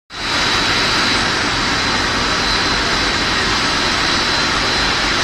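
Corn puff snack extrusion line machinery running: a loud, steady mechanical din with a thin, steady high whine over it.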